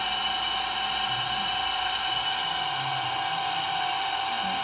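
A steady machine-like whine with two even held tones and no breaks, with faint low voices underneath.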